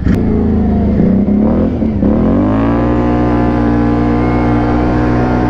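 Can-Am Renegade 500 ATV's single-cylinder engine running through a Big Gun Evo aftermarket end silencer while riding. The engine note dips about two seconds in, then rises and holds steady at a constant throttle.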